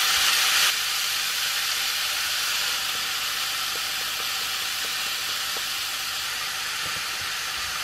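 Mushroom stir-fry vegetables and smoked mackerel sizzling in a frying pan: a steady hiss, a little louder for the first moment and then even, with a few faint ticks.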